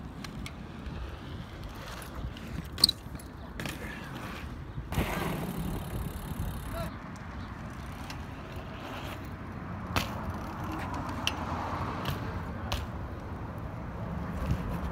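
BMX bike riding on concrete: tyres rolling over a steady low rumble, with several sharp clacks and knocks from the bike hitting and landing on the concrete, the loudest about three seconds in and another near ten seconds.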